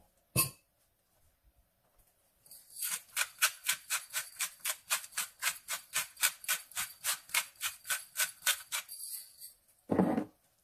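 Salt and pepper being dispensed over the pan: a quick, even rattle of strokes, about four a second, lasting some six seconds. A short knock follows near the end.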